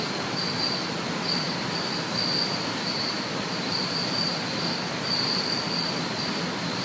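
Steady background hiss with a thin high-pitched whine that keeps swelling and fading.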